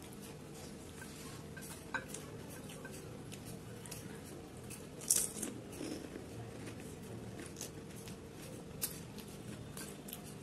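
Close-up eating sounds of fuchka (pani puri): crisp fried puri shells crunching and crackling, with a few sharp crunches, the loudest about five seconds in.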